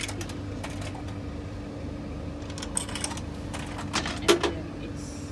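Coins clicking into a bread vending machine's coin slot and coin mechanism as credit is paid in, a few scattered clicks with the loudest near the end, over a steady low hum.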